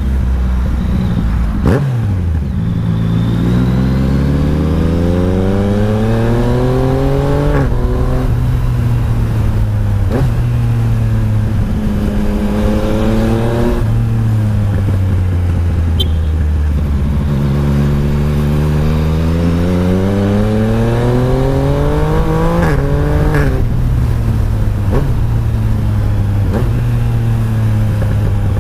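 Yamaha Tracer 900 GT's 847 cc inline-three engine pulling hard through the gears: the pitch climbs, drops sharply at each upshift, then climbs again. In the middle it winds down with falling pitch as the bike slows, then revs up again.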